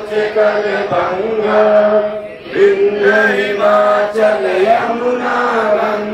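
A large crowd singing together in unison, long held notes changing every second or so.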